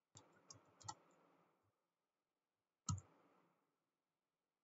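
Faint clicks of a computer mouse and keyboard: a quick run of four or five clicks in the first second, then one louder click about three seconds in.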